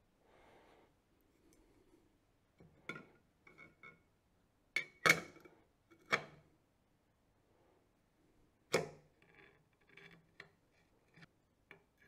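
Light clicks and knocks of a ZWO electronic filter wheel being put back together by hand, as its filter carousel is fitted onto the hub and handled with a screwdriver. The sharpest clacks come about five and nine seconds in.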